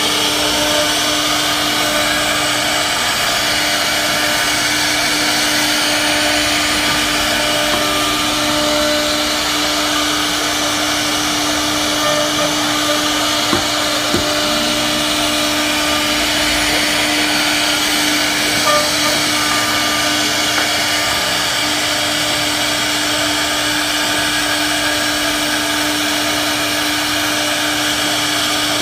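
CNC wood router's spindle running steadily as it cuts wood, a constant whine over a high hiss.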